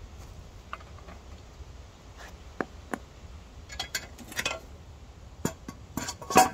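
Light clinks and taps of hard objects being handled, irregular and scattered, with a small cluster midway and the loudest clink, ringing briefly, near the end.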